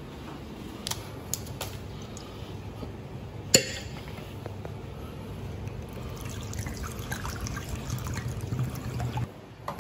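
Clear liquor in a glass bottle: a sharp click as the cap comes off, then the liquor poured in a stream into a small bowl, the pour stopping shortly before the end.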